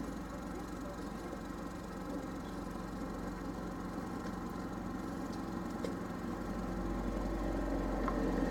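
Car engine idling steadily at the closed barriers. Another vehicle's engine grows louder near the end as it approaches.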